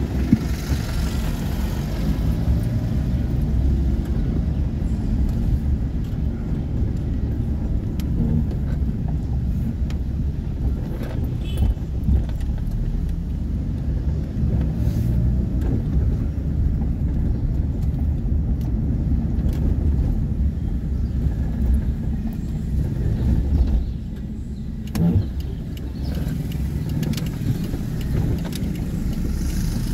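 A vehicle driving through town streets, heard from the moving vehicle: a steady low engine and road rumble. It eases off for a couple of seconds near the end, with a single light knock.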